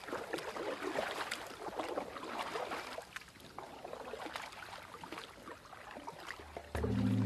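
Water splashing and lapping against a paddled aluminium canoe, with small crackling splashes, busier for the first few seconds and then softer. Music comes in just before the end.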